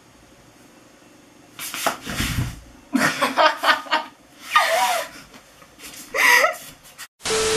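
A young woman laughing in short bursts, rising to a high squeal near the end. About one and a half seconds in, there is a rustle and flap of a large bedsheet being swung.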